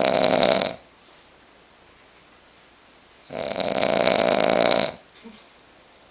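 A sleeping person snoring loudly with a rattling snore, in long breaths a few seconds apart: one snore ends just under a second in and another runs about a second and a half from about three seconds in.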